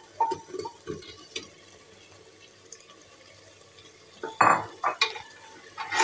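Potato pieces tipped from a glass bowl into an aluminium pressure cooker of thick masala and peas, with a few short clinks and soft knocks. Near the end a metal spoon stirs them in with a few loud scrapes against the pot.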